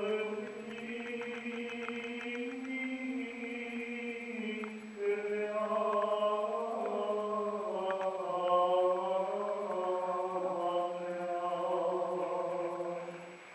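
Orthodox liturgical chanting: voices sing a slow melody over a steady low held note, with a new, louder phrase beginning about five seconds in and the singing fading near the end.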